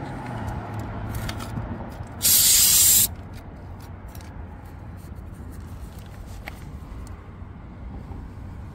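A loud hiss of air escaping from a car tyre's valve for about a second, a couple of seconds in, as the cordless inflator's hose is connected, over a low steady outdoor rumble with a few light clicks.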